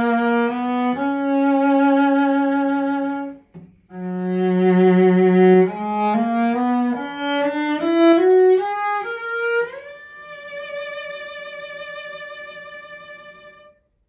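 A 1987 Grimley/Foster bench-made English 7/8-size cello played with the bow: sustained notes with vibrato, a short break about three and a half seconds in, then a climbing run of notes that ends on a long high note held with vibrato and fading away near the end.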